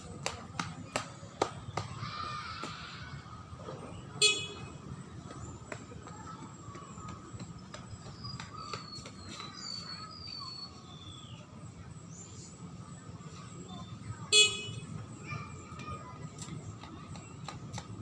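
Beep test (multistage shuttle-run) recording sounding its short, shrill electronic beep twice, about ten seconds apart, each the signal that the runner must reach the end line of the shuttle. Light scattered ticks and taps in between.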